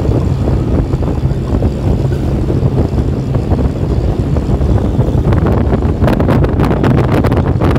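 Steady low rumble of a moving vehicle heard from inside, with wind blowing on the microphone. From about five seconds in, rapid crackling clicks sound over the rumble.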